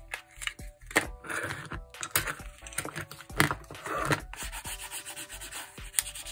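A bone folder rubbed in scraping strokes along a binder piece freshly covered with double-sided tape, pressing it down, among light clicks and taps of handling.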